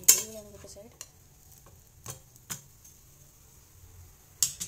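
Steel spatula clinking and scraping against a flat griddle pan while a batter pancake fries with a faint sizzle. There are five sharp clinks, the loudest right at the start.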